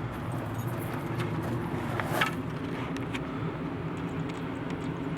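Steady low hum of outdoor air-conditioning units running, with a brief higher-pitched sound about two seconds in.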